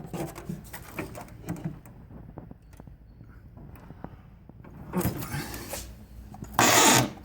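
Clunks, knocks and scraping as equipment is shifted about on top of an old window air conditioner's metal case, with a loud scrape lasting about half a second near the end.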